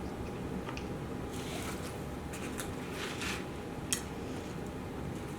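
A person chewing food close to the microphone, with soft wet mouth sounds and a sharp click about four seconds in, over a steady low hum.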